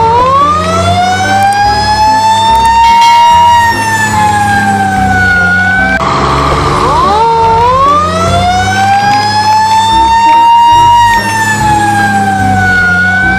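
Fire truck siren wailing in two long cycles. Each climbs quickly, then rises slowly and slides back down over about six seconds, and the second cycle starts about six seconds in. A low steady rumble runs underneath.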